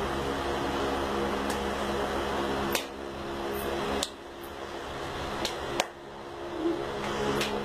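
Steady mechanical hum in a small room, broken by four sharp clicks: one a little under three seconds in, one about four seconds in, one near six seconds and one near the end.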